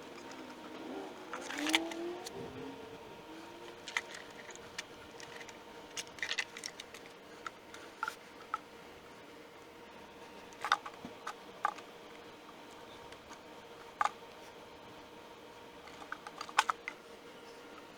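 Scattered sharp clicks and knocks over a faint steady hum.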